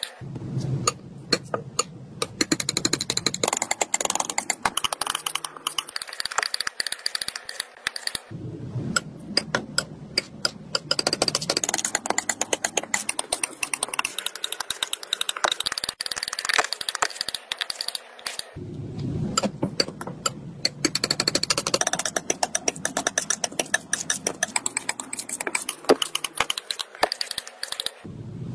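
Metal palette knife tapping and squishing through thick wet acrylic paint, a fast run of sticky taps and clicks. It comes in three runs, with short breaks about eight and eighteen seconds in as a new pair of colours is mixed.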